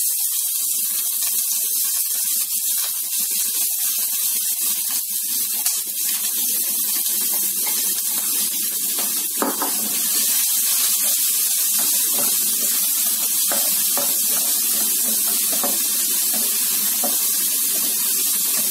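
Chopped onions sizzling steadily in hot cooking oil in a frying pan as they sauté, with a few light taps of a wooden spatula stirring them.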